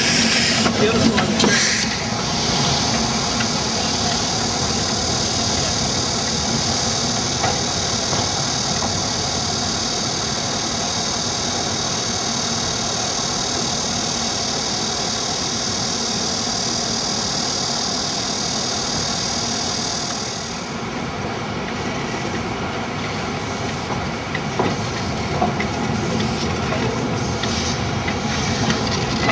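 Chinese C2 0-8-0 narrow-gauge steam locomotive standing in steam, with a steady hiss of steam escaping around its cylinders. The high hiss stops about two-thirds of the way through, leaving the engine's lower steady noise, with a few knocks near the end.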